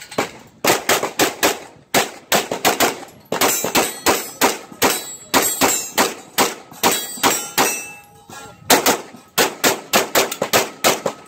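Rapid pistol fire from a 9mm Major compensated open gun: fast strings of sharp shots, many in quick pairs, with short pauses about two seconds and eight seconds in. Steel targets ring briefly when hit.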